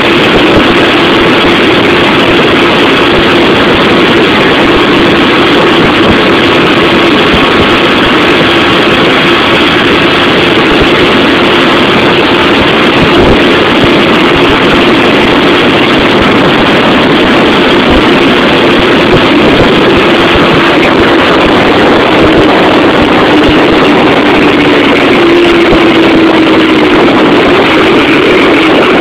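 Modified Yamaha YBR 125 motorcycle's single-cylinder four-stroke engine held at high revs at full speed, very loud and steady under a dense rushing noise from the ride. Its pitch rises slightly near the end.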